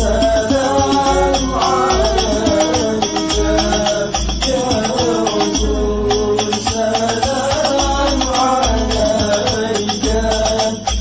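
Men singing an Arabic devotional melody (sholawat) into microphones, backed by hadrah frame drums with jingles and a deep drum beat.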